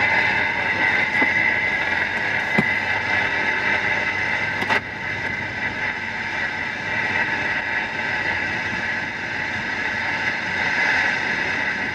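Steady road and engine noise inside a car cruising on an expressway. About five seconds in there is a sharp click, after which the noise drops slightly.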